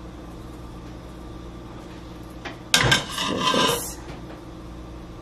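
Cayenne pepper shaken from a spice shaker over a pot of boiled potatoes: about two and a half seconds in, a sharp tap, then about a second of rough rattling and scraping. Under it a steady low hum.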